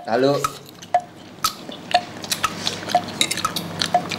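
Forks clinking and scraping against ceramic bowls as spaghetti is eaten, over soft background music of light plucked notes, two a second, alternating between a lower and a higher pitch.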